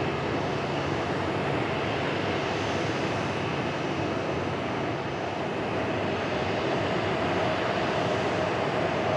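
Boeing 737-800 jet airliner running on the apron: a steady rushing engine noise with a faint steady whine that grows a little stronger about halfway through.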